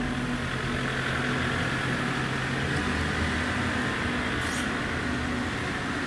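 Steady rush of strong squall wind, with a low hum of road traffic under it.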